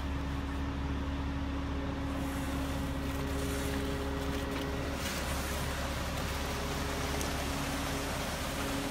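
Ready-mix concrete truck running steadily during a pour, its engine giving a constant low drone with a steady hum over it while the McNeilus mixer drum turns. A rushing noise grows louder about five seconds in.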